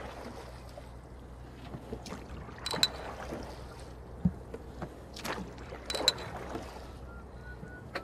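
Ocean rowing boat under oar: the oars knock in their gates and the blades splash at each stroke, sharp sounds in pairs about a second apart that repeat every few seconds, over a steady low rumble.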